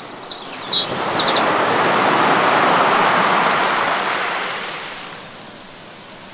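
Waves washing in: a rush of water noise that swells over about three seconds and then fades away, with a few short, high chirps in the first second and a half.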